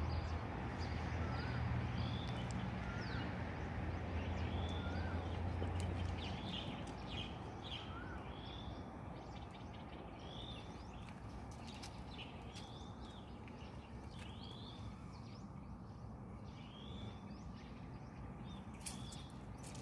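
Birds calling repeatedly: short arched chirps about once a second, with a few lower rising whistles in the first eight seconds. A low steady hum underlies the first six seconds, then fades.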